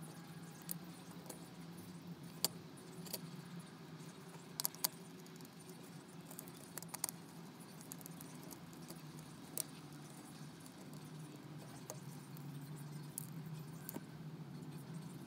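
Small scattered clicks and rustles of insulated wire being bent and threaded between the terminals of a plastic modular switch board by gloved hands, over a steady low hum.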